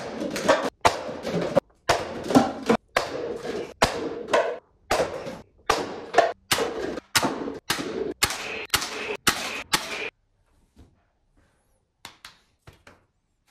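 Toy shield-shaped foam dart blaster firing a rapid string of shots, about fifteen in ten seconds, each a sharp crack with a short noisy tail, knocking over stacked paper cups. The firing stops about ten seconds in, leaving a few faint taps.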